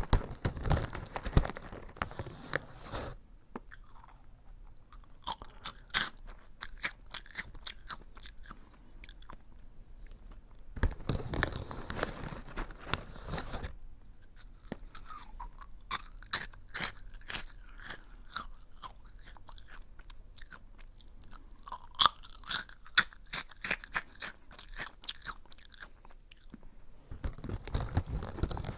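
Aji Curry, a crunchy curry-flavoured snack, being chewed up close to the microphone. Crisp crackling crunches come in several bouts with short pauses between them.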